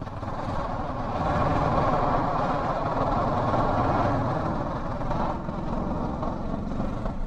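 Kawasaki Versys 650 motorcycle underway at road speed: a steady rush of wind and road noise over the engine's low drone.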